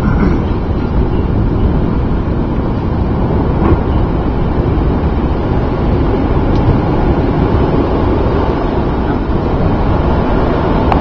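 Strong wind buffeting the microphone: a steady, loud, low rumble.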